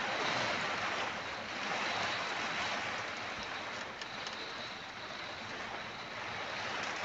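Heavy rain and strong gusting wind beating on a motorhome's windscreen and body, heard from inside the cab: a steady dense hiss that swells and eases slightly, with a few faint drop ticks.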